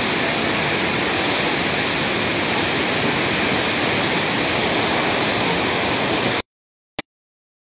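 Bhote Koshi river in muddy flood, its torrent making a steady rushing noise. The sound cuts off suddenly about six seconds in, leaving silence broken by one short click.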